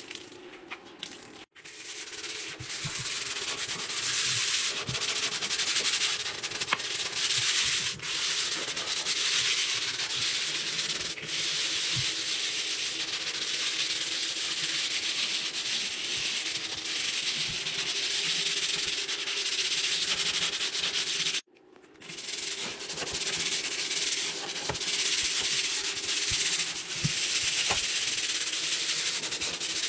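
Stiff-bristled scrubbing brush scrubbing wet floor tiles with Ajax scouring powder: a continuous scratchy rubbing that stops briefly about two-thirds of the way through.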